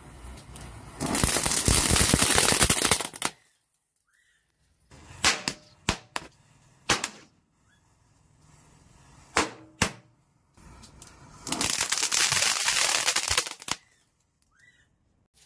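A row of small firecrackers going off in a rapid run of pops lasting about two seconds, then several single sharp bangs spread over a few seconds, then another rapid run of pops of about two seconds.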